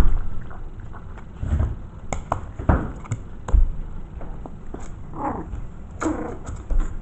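Five-week-old Maltese mix puppies right at the camera: scattered knocks and scratches as they paw and mouth it, with two short whines falling in pitch about five and six seconds in.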